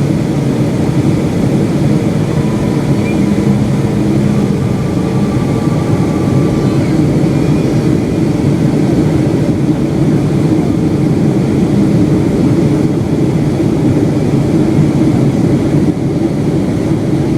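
Steady cabin noise inside a Boeing 757-200 airliner in flight: engine and airflow noise heard from within the cabin.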